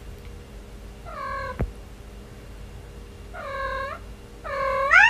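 Silver tabby cat meowing three times, short calls about two seconds apart; the last is the loudest and rises in pitch.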